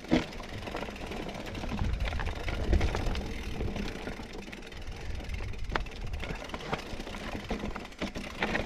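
Mountain bike riding down a rough trail: steady low rumble of wind and tyres, with scattered knocks and rattles from the bike, the sharpest right at the start.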